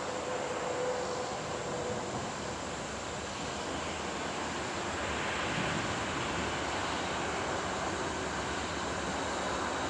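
Approaching diesel freight train, still distant: a steady rumble and rail noise that grows a little louder after about five seconds. A faint steady tone fades out about two seconds in.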